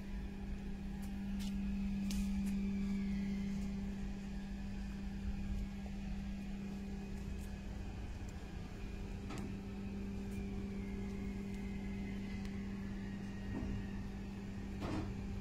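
Steady machine hum: one constant tone over a low rumble, with a few faint clicks.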